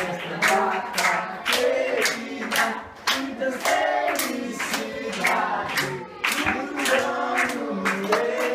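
Voices singing together with steady rhythmic hand clapping, about two claps a second.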